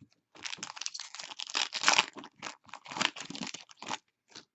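Wrapper of a trading-card pack crinkling as it is handled and torn open, in irregular crackly bursts for about three and a half seconds.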